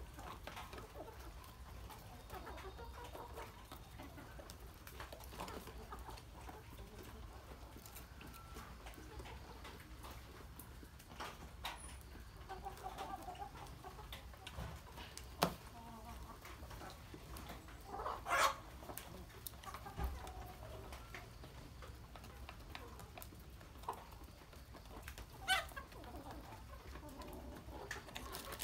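A flock of chickens clucking while they feed, with a few louder calls, the strongest about two-thirds of the way through and another near the end. A couple of sharp taps sound in between.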